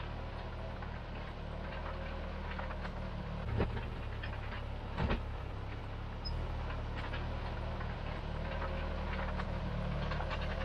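Bristol 25 crawler dozer's engine running steadily under work, with repeated metallic clicks and clanks and two louder knocks about three and a half and five seconds in.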